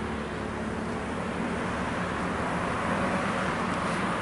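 Steady road traffic noise from cars passing on a multi-lane road, with a low engine hum underneath.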